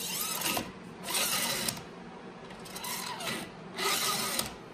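Head of a Bessey parallel clamp sliding along its steel bar, pushed back and forth in four quick strokes with a rubbing, rasping sound. The bar and head have been cleaned of dried glue, waxed and lubricated with silicone spray, so the head travels freely.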